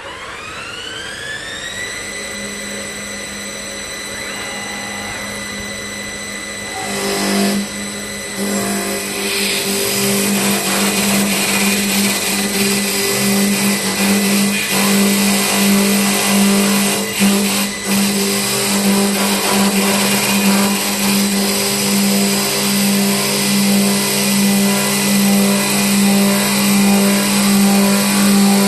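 KC1512-3S CNC wood lathe running: its spindle drive whines up in pitch and settles to a steady high whine with a pulsing hum. About seven seconds in the cutters start working the wood with a dense rasping noise, which grows louder from about ten seconds on.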